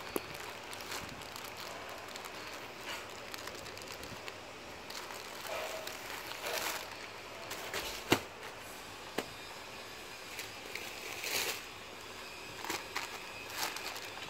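Thin plastic packaging being cut with scissors and pulled open around toilet paper rolls: bouts of plastic rustling and crinkling, with a few sharp clicks, the loudest about eight seconds in.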